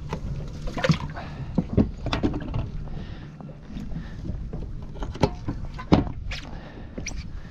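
Irregular knocks and clicks of fishing gear being handled on a boat deck: hooking a live baitfish and picking up a spinning rod. Under them is a steady low rumble of wind and water against the hull, with the loudest knock about six seconds in.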